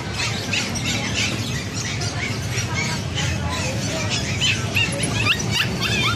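Many short, high-pitched squeals and chirps from caged pet-shop animals, overlapping several times a second.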